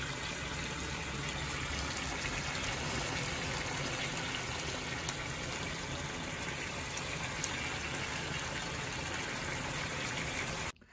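Beef liver and vegetables sizzling in a frying pan on the stove: a steady hiss with a few faint pops, cutting off suddenly at the very end.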